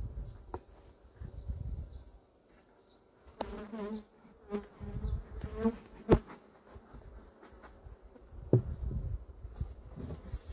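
Honeybees buzzing as they fly close past the microphone, the buzz swelling and fading in passes. A few sharp knocks come through, the loudest about six seconds in.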